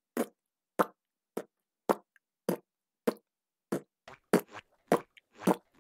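Squidward walking noise: a steady run of short footstep pops, about ten of them at a little under two a second.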